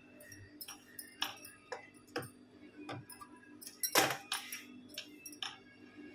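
Bangles clinking and tapping against each other and the sewing-machine table as hands handle fabric, in irregular light clicks with a louder clink about four seconds in. A low steady hum runs underneath.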